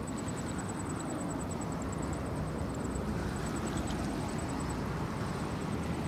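Steady low outdoor rumble with no distinct event, with a faint, fast high-pitched ticking running through it.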